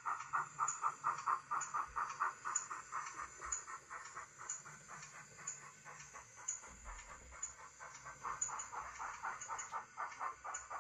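00 gauge model steam tank locomotive running along the track, its sound unit giving a steady rhythmic chuffing of about three beats a second with a light tick about once a second. The chuffing fades in the middle and comes back near the end.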